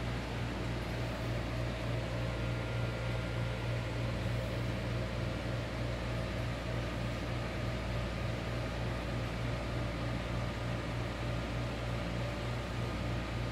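Steady low mechanical hum with an even hiss, unchanging throughout: the background drone of a running appliance or fan in the room.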